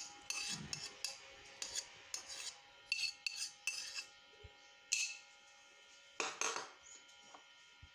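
Metal spoon clinking and scraping against a dish in short, irregular strokes as yogurt is spooned onto flour, with two louder scrapes in the second half.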